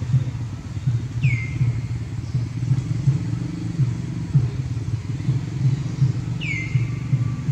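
A motor engine running steadily, a low pulsing rumble throughout. Two short high chirps that fall in pitch, about a second in and again near the end.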